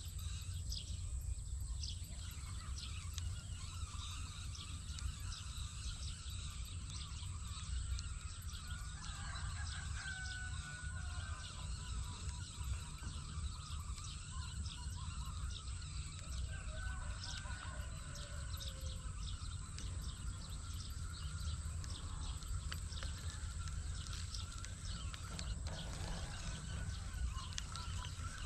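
Wind rumbling on the microphone, with faint bird calls now and then between about a third and two thirds of the way through.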